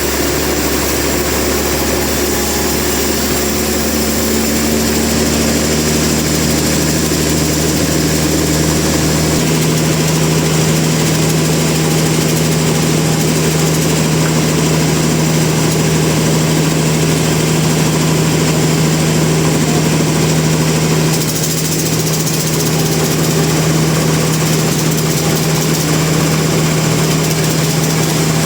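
Heavy machinery running with a steady drone. Its pitch shifts lower about five seconds in, and a deep rumble underneath drops away about nine seconds in.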